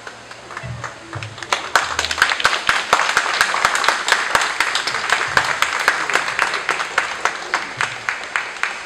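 Crowd of guests applauding: the clapping builds over the first two seconds, with single claps close by standing out sharply, and thins out near the end.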